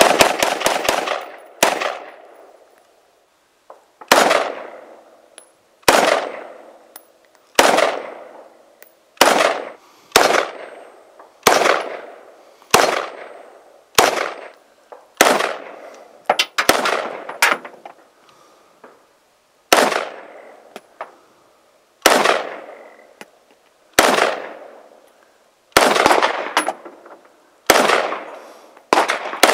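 Ruger Mini-14 semi-automatic rifle fired repeatedly: about twenty shots, mostly one to two seconds apart, with a quick string of several near the start. Each crack is followed by a short echoing decay.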